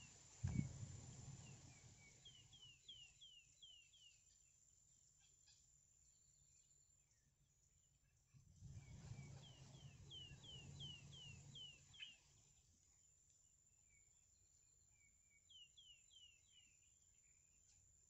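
Faint bird calls: three runs of short, high, falling chirps, several a second, with a low rumble of noise through the middle run.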